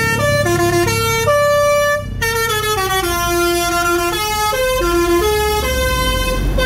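Multi-tone bus "telolet" horn playing a melody of stepped notes that rise and fall, each held up to about a second, over a low engine rumble, with a short break about two seconds in.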